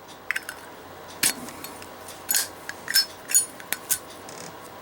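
A Zippo lighter's steel insert and brass case clicking and clinking as they are handled, with about six short, sharp metallic clicks spread over a few seconds.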